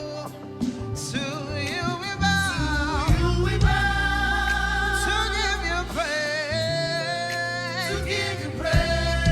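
Live gospel praise music: a lead singer holding long notes that bend in pitch over a band's bass and drums, with choir voices. The bass drops out briefly about six seconds in.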